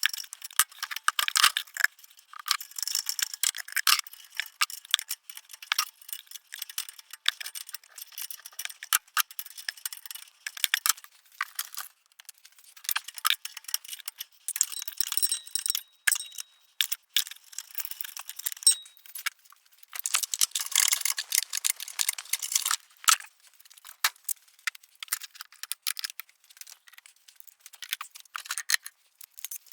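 Ratchet wrench tightening the exhaust pipe bolts: runs of rapid metallic clicking in bursts, with short pauses and the clink of tools between them.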